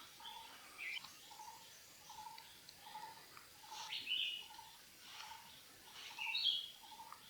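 Forest birds calling: a short, low note repeats evenly about every 0.7 seconds, with three louder, higher chirping calls about one, four and six and a half seconds in.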